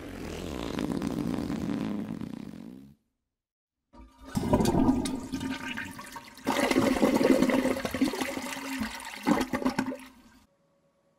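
A low, growling roar for about three seconds, then after a second's gap a toilet flushing, rushing and gurgling for about six seconds before cutting off suddenly.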